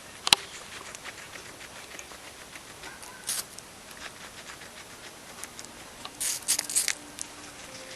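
Guinea pig chewing a piece of apple: a short crunchy bite about three seconds in and a quick run of crunches near the end. A single sharp click just after the start is the loudest sound.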